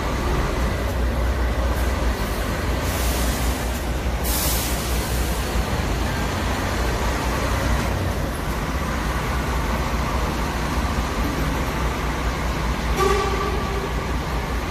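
Bus engine running with a steady low rumble. There are two short hisses of air about three and four and a half seconds in, and a brief pitched toot near the end.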